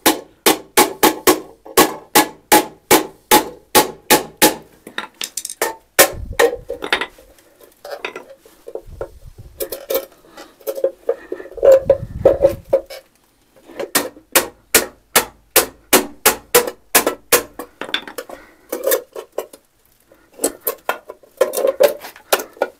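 Repeated metal-on-metal strikes against a locked metal cash box being forced open, about three blows a second in runs with short pauses, each with a brief ringing clink, and a few dull thuds between the runs.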